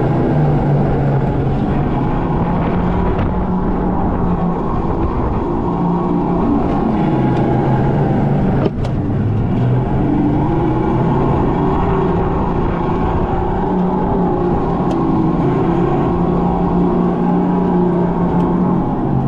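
Electric go-kart driving laps, heard from the driver's seat: the motor's whine steps up and down in pitch with speed over a steady rumble. A single sharp click about nine seconds in.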